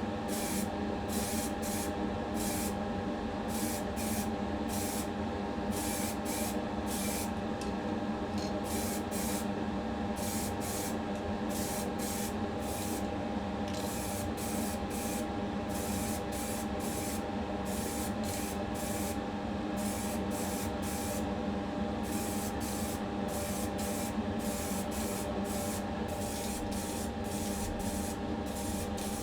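Primer being spray-painted onto a diecast model car body: repeated short hisses of spray over a steady mechanical hum.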